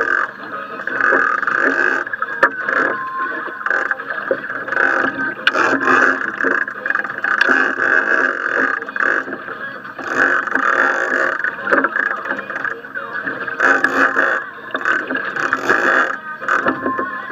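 Steady rushing noise of wind and sea around a small fishing boat, rising and falling, with irregular knocks and clicks as the angler works the rod and big-game reel.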